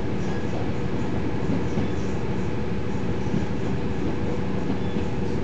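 KiHa 40 series diesel railcar heard from inside the passenger cabin while moving: a steady rumble of wheels on the rails with an even hum from the running diesel engine.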